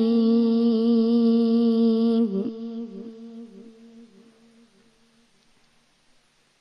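A boy's voice in Quranic recitation (tajweed), holding the long melodic final note of 'al-Rahim' at the close of the Basmala. The note breaks off about two seconds in and is followed by a fading echo that repeats several times, dying away to near silence.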